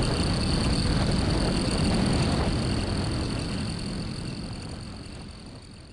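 Motorcycle riding at track speed: engine and wind noise with a steady high whine, fading out over the second half.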